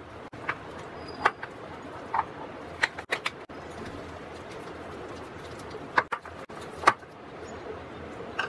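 Steel spoon stirring a stiff wheat-flour and curd batter in a bowl, scraping, with a handful of sharp clinks as it knocks against the bowl's side.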